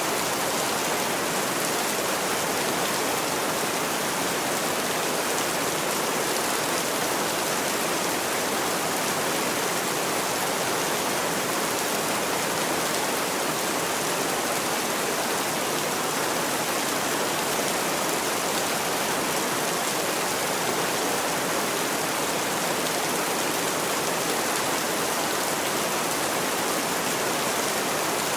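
Heavy rain falling steadily: a dense, even hiss that does not rise or fall.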